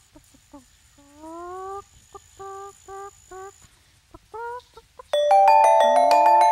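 Chicken clucking in short, repeated calls that bend upward. About five seconds in, a loud flourish of quick glockenspiel-like mallet notes rings out over it.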